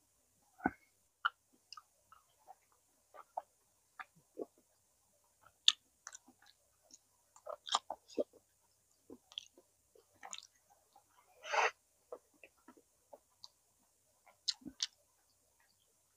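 Close-miked mouth sounds of someone chewing boiled pig's tail: scattered wet smacks and clicks, with one longer, louder noisy sound about eleven and a half seconds in.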